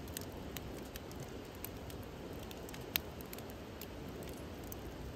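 Wood campfire of split logs burning in a steel fire pit: a low steady rush of flame with scattered crackles and one sharper pop about three seconds in.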